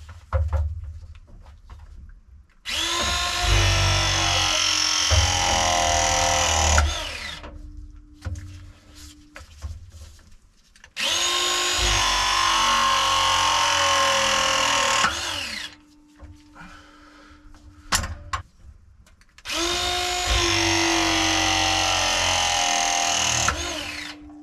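Battery-powered press tool crimping copper press fittings onto pipe: three press cycles of about four seconds each, the motor running steadily through each crimp and stopping, with quieter handling noise and a sharp click between them.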